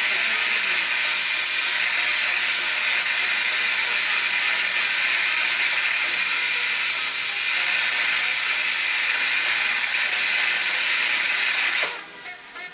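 High-frequency electrical sparks from a 1930s diathermy machine's tuned coil output, a loud steady hiss that cuts off suddenly near the end when the power is switched off.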